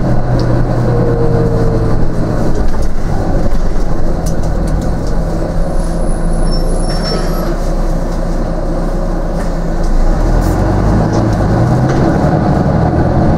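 Volvo B9TL double-decker bus's six-cylinder diesel engine running, its note stepping up about two seconds in and dropping back near ten seconds, with a few light rattles over it.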